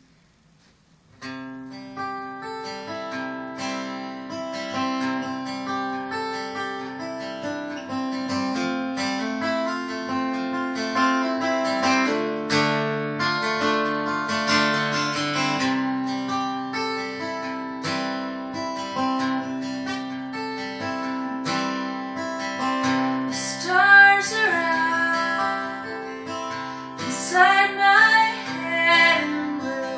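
Solo acoustic guitar starting about a second in, playing a folk song intro of ringing chords. About 23 seconds in, a woman begins singing over the guitar.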